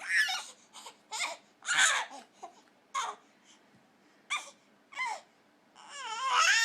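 A baby squealing and babbling: a string of short, high-pitched squeaks, then one longer wavering squeal near the end.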